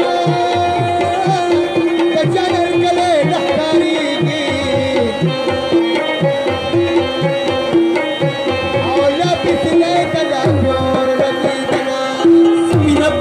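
Live Pashto folk music led by tabla drumming, with a steady rhythm of bass strokes that bend down in pitch. Under it run a sustained drone tone and a wavering melody line. The drone swells louder near the end.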